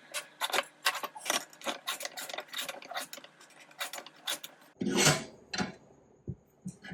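High-speed steel mini circular saw blade on a flex-shaft rotary tool cutting into copper. It makes a rapid, irregular rasping chatter for about five seconds, then two louder scrapes and a few lighter knocks near the end.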